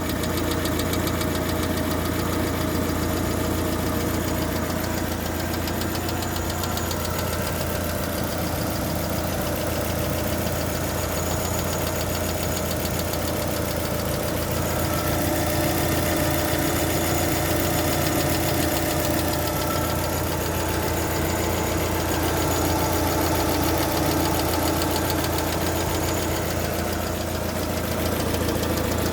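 Car engine idling with a rapid, even ticking clatter from the hydraulic valve lifters. The tapping comes and goes, and the owner suspects it is from too little oil pressure reaching the lifters.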